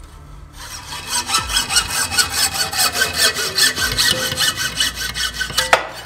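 Bahco 320 hacksaw cutting through a bicycle fork steerer tube clamped in a saw guide. It goes in quick, even back-and-forth strokes that start about half a second in and stop with a sharp clack near the end.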